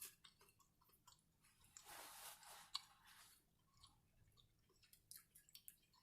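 Faint close-up chewing and mouth clicks from someone eating, with a short soft noisy stretch about two seconds in.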